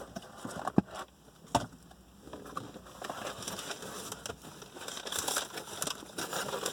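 Crinkling, rustling handling noise, with two sharp clicks about a second in and again under a second later, and the rustling growing busier in the second half.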